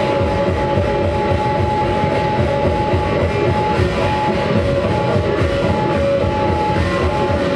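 Live band playing loud, amplified rock music, with guitar holding long sustained notes over a dense low end.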